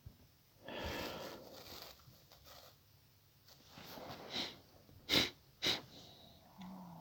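A person's breath noises close to the microphone: a longer breath about a second in, then two short sharp puffs or sniffs about half a second apart.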